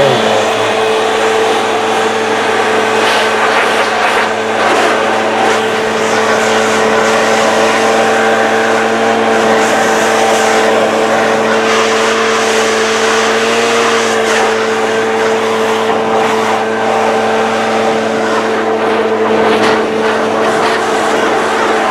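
Backpack leaf blower running at a steady, constant pitch, blasting loose charcoal off a torch-burned wood carving.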